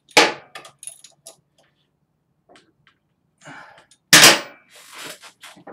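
Two loud, sharp metal knocks about four seconds apart, with lighter clicks between, from hand tools working on the front engine mount bolts.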